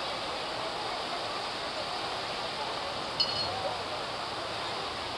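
Fountain jets arcing into a large pool, a steady rush and splash of falling water, with faint distant voices and a short high-pitched sound about three seconds in.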